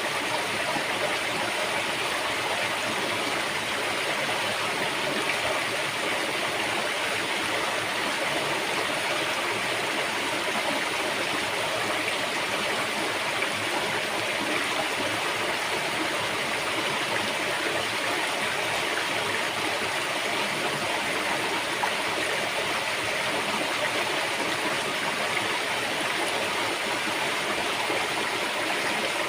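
River water flowing over rocks: a steady, even rushing and splashing that does not change.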